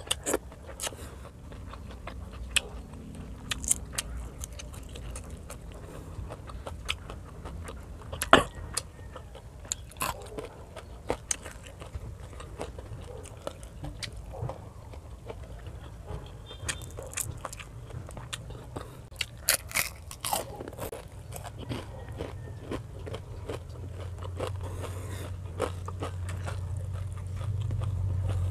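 Close-miked eating: crunchy bites and chewing of fried fish, rice and raw radish with dried anchovies, with sharp crunches scattered throughout. A low hum grows louder near the end.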